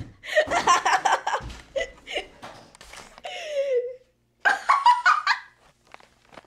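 A boy laughing hard in a run of bursts, with a long falling squeal about three seconds in, then a final burst about five seconds in before it goes quiet.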